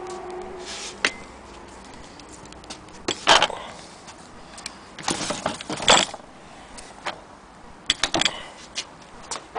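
Metal clicks and clatters from handling an antique Singer 13K sewing machine head, in short clusters every two to three seconds. The loudest come a little past three seconds and near six seconds.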